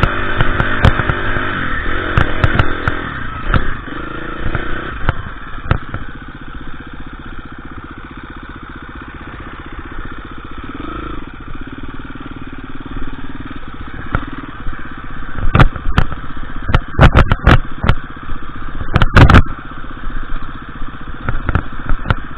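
KTM EXC 350 dirt bike's single-cylinder four-stroke engine running, louder at first and settling to a lower, steadier note in the middle. In the second half there is a run of loud sharp knocks and clatter.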